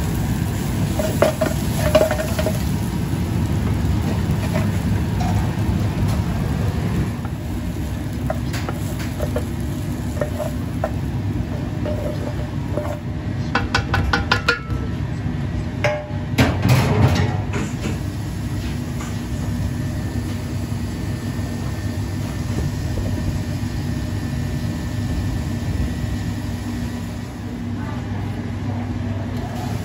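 Chopped onions being stirred and scraped with a wooden spatula in a steel pan, with a light sizzle, over a steady low rumble of a gas range. Near the middle there is a clatter of metal as the onions are scraped into a stainless steel tray.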